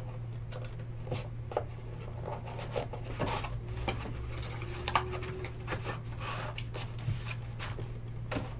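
Trading cards and their plastic holders being gathered and sorted on a table: scattered small clicks, taps and rustles, the sharpest about five seconds in. A steady low hum runs underneath.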